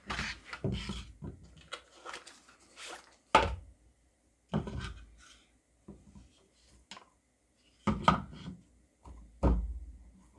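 Irregular knocks, taps and rubs of a soft pine board and a pocket knife being handled on a work surface, loudest at about three and a half seconds in and again near the end.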